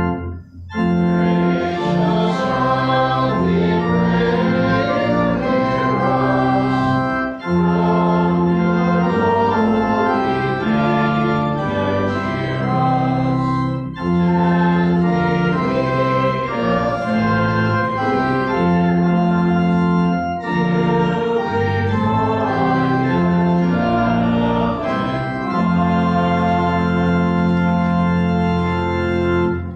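Organ playing a hymn in phrases of about six seconds, with short breaks between them, ending on a long held final chord that cuts off just before the close.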